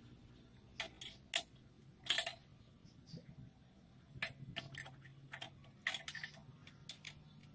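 Irregular metal clicks and taps from a homemade steel chainsaw mill attachment being adjusted by hand, the loudest about a second and two seconds in, over a faint steady low hum.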